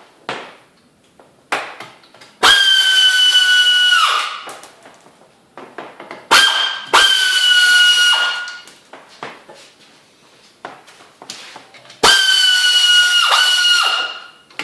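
Cordless power tool with a 12 mm socket spinning out bolts in three loud bursts, each a high whine that drops a little in pitch under load before stopping, with small clicks of the socket and bolts between bursts.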